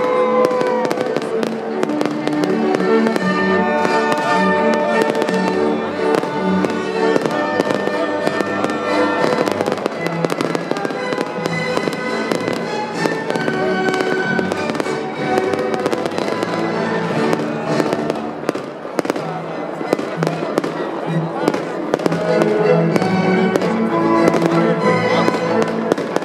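Fireworks banging and crackling in quick succession over Viennese waltz music played loud and continuously.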